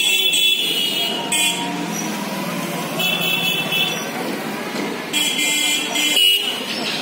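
A motor vehicle engine running steadily, with a high-pitched horn-like tone sounding in short bursts about four times.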